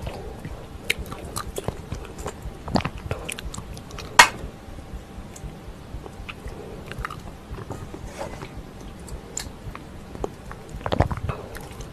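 Eating sounds of pork and kimchi stew: wet chewing and biting with many small mouth clicks and smacks, one sharp click about four seconds in, and a louder cluster near the end.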